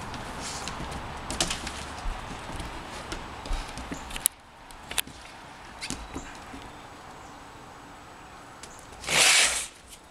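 Footsteps and husky claws on a wooden deck, with scattered sharp knocks. Near the end comes a louder rushing noise lasting about half a second.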